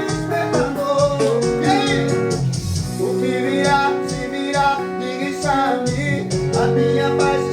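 Arrocha band music, most likely an instrumental break: a melodic guitar line over sustained chords, bass and a steady beat.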